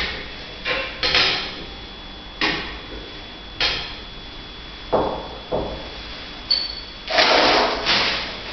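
A ruler and marker knocking against a whiteboard as lines are drawn: about half a dozen sharp taps and duller thuds. About seven seconds in comes a longer scraping, rustling noise.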